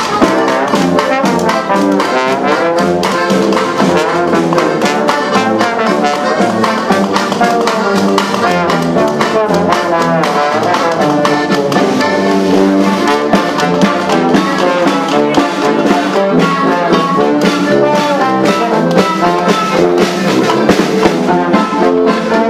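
Live street band playing: brass horns including a trombone, with accordion and guitar, over a steady beat.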